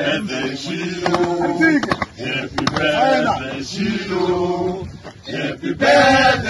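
A group of men singing a chant-like song together, in short phrases with the voices rising and falling in pitch.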